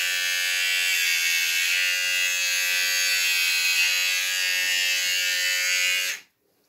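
Electric shaver buzzing steadily as it trims a beard, its pitch dipping slightly a few times, then switched off about six seconds in.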